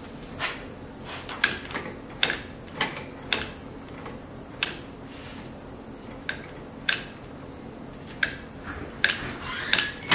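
Irregular sharp metallic clicks and taps, about a dozen, from hands working the parts at the top of a Bridgeport milling machine's head, over a steady low hum.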